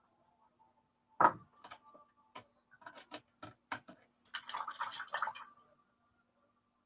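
Paint tubes and painting supplies being handled on a worktable. There is one sharp knock about a second in, then a string of light clicks, then a quick rattling clatter a little past the halfway point.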